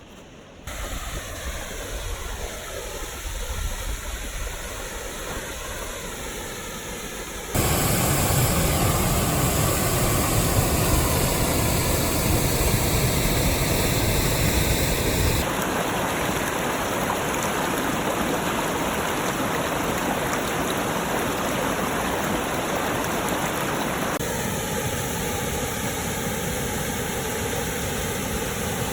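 Rushing water of river waterfalls, a steady loud rush. It jumps louder about eight seconds in, then eases somewhat about halfway through.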